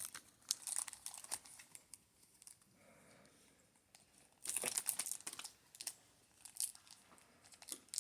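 Foil Pokémon booster pack wrappers crinkling and tearing as they are handled and opened, in short crackly bursts with a lull of a couple of seconds partway through.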